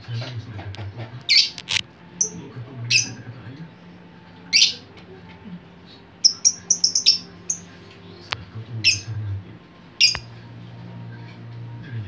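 Lovebird calling: short, sharp, high-pitched chirps at irregular intervals, with a quick run of several about halfway through. A steady low hum runs underneath.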